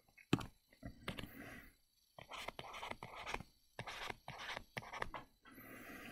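Stylus writing on a tablet screen: a sharp tap, then a run of faint short scratchy strokes and clicks, with a soft hiss near the end.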